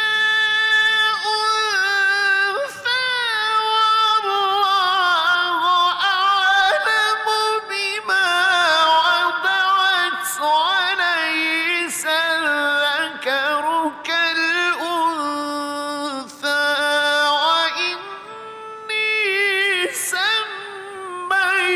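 A man reciting the Quran in a drawn-out melodic style: long held notes and rapid, wavering ornaments on the vowels, broken by a few brief breaths.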